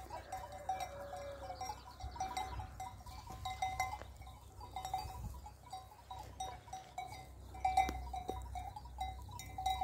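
Bells on grazing sheep clinking irregularly as the flock moves.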